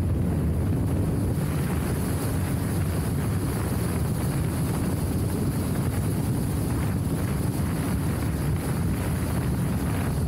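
Motorcycle riding along a loose gravel road, the engine running steadily at cruising speed under wind noise on the microphone.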